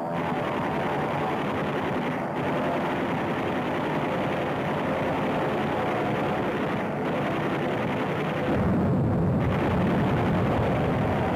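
Steady drone of warplane engines on an old wartime film soundtrack that sounds dull and narrow. A louder low rumble swells briefly about eight and a half seconds in.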